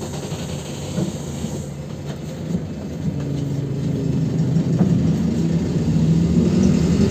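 Engine of a PAZ 320405-04 bus heard from inside the cabin, running as the bus moves off, getting louder and rising slightly in pitch from about three seconds in as it picks up speed.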